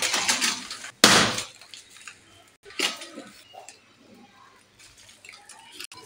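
Hands working wet potting soil into clay pots while repotting aloe vera: a rushing pour that ends about a second in, a sharp loud scrape right after, then scattered lighter scrapes and knocks of soil and pots.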